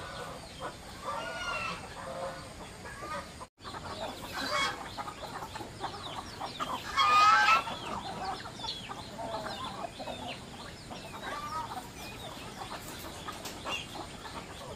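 A flock of chickens clucking, with many short calls overlapping and one louder call a little after halfway through.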